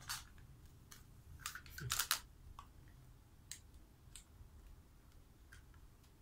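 Small plastic toy food pieces handled and knocked together, making light clicks and clacks, with a quick cluster of louder clacks about two seconds in.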